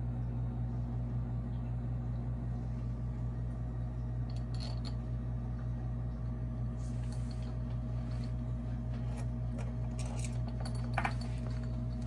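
A steady mechanical hum with several fixed low tones runs throughout, with a few faint clicks and scrapes of hands handling a wooden sand-casting flask on a workbench and a slightly louder knock near the end.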